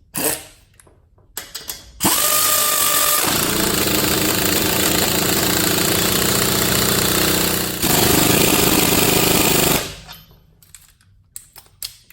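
Earthquake 3/8-inch pneumatic impact ratchet running for about eight seconds to tighten a lug nut. It starts with a steady whine for about a second, then goes into continuous rapid impact hammering, easing off for a moment and hammering again before it stops. A few light clicks of handling come before it.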